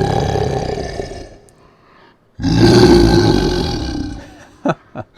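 A human voice growling and roaring, pitch-shifted down to sound like a monster, with the treble boosted a touch. One growl fades out about a second in, a second starts about two and a half seconds in and lasts about two seconds, and two short low blips come near the end.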